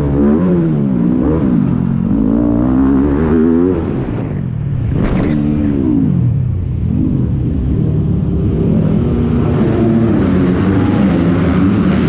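Dirt bike engine heard from on board, revving up and down with the throttle. Its pitch rises and falls several times, drops off about four seconds in, then settles into a steadier, lower note.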